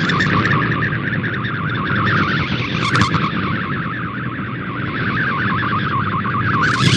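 MFSK64 digital image transmission received off shortwave radio: a rapid, warbling stream of shifting tones over hiss and static, with two brief bursts of noise, one about three seconds in and one near the end.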